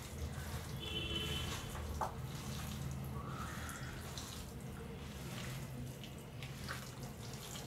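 Faint wet squelching and squishing of a hand kneading chicken pieces in a thick curd-and-spice marinade with no water added, in a plastic bowl, with a few small clicks and a steady low hum underneath.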